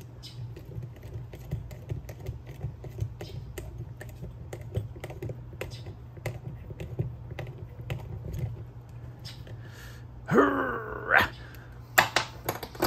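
Small hand ratchet clicking in quick, uneven strokes as a bolt is run down into a motorcycle brake caliper. About ten seconds in comes a short hummed vocal sound from a man, and near the end a few sharp knocks.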